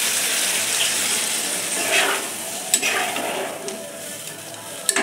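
Water poured into a hot kadai of frying green jackfruit and prawns sizzles, and the sizzle fades as the curry is stirred. A spoon taps sharply against the pan a couple of times.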